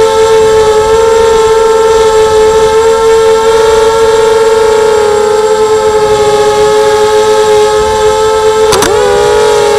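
ZMR250 FPV racing quadcopter's brushless motors and propellers whining loudly at a steady pitch, close to the onboard camera's microphone. About nine seconds in there is a brief click, and the pitch dips and recovers quickly.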